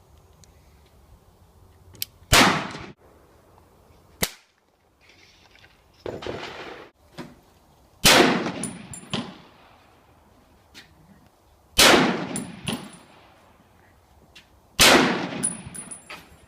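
AR-15 rifle firing 5.56 rounds: four loud single shots several seconds apart, with a few quieter shots between. Brief high metallic pings ring out after the loud shots.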